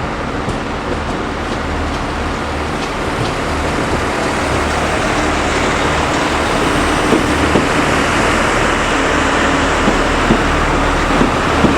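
Irish Rail 29000 class diesel multiple unit pulling away under power, its diesel engines running with a pulsing low hum and growing steadily louder. A few short knocks from the train come in the second half.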